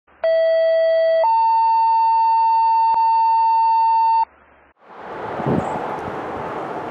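Two-tone sequential paging alert of the kind used to tone out a fire department: a steady lower tone for about a second, then a higher tone for about three seconds, cutting off abruptly. From about five seconds in, vehicle and road noise rises from the passing fire engine.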